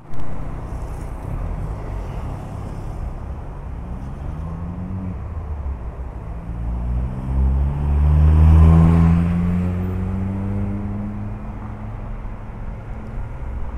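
Street traffic: a steady low rumble of road vehicles, with engines rising in pitch as they accelerate past, the loudest one about two-thirds of the way through.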